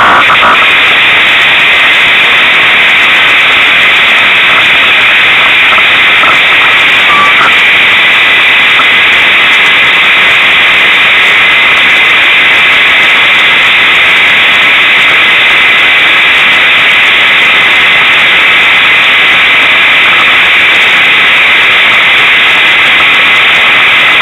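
Unimog 404 S trial truck's engine running, picked up by an onboard camera microphone that is overloaded: a steady, harsh, distorted hiss-like noise with no clear pitch.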